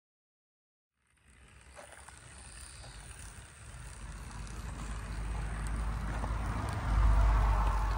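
00 gauge model locomotive running along the track, a rolling rumble of wheels on rail and motor whirr. It starts about a second in and grows louder as it nears, loudest near the end, with a few faint clicks.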